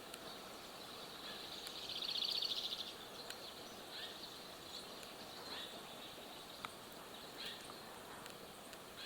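A small bird's rapid, high trill, about a second and a half long, over quiet forest background with a few faint chirps and small ticks.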